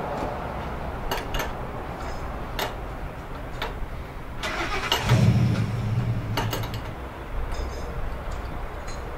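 Metal clicks and knocks of an adjustable wrench on the brass fittings of a pressure washer's unloader valve as they are turned. About five seconds in, a brief low engine rumble swells and fades.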